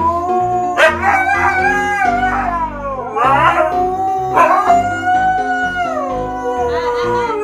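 Siberian husky howling in several long drawn-out notes that slide down in pitch, with a shorter wavering cry in between. Background music with a steady bass plays underneath.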